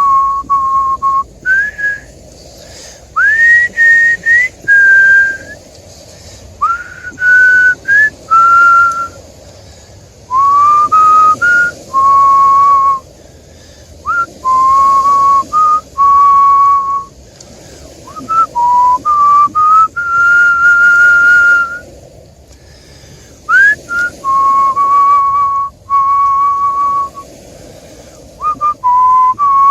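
A person whistling a tune: clear single notes, mostly held, some sliding up into the note, in short phrases with breaks between them.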